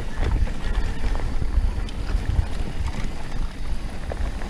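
Wind buffeting the microphone of a bike-mounted camera on a mountain-bike descent, an uneven rumble, with scattered clicks and rattles from the bike over rough ground.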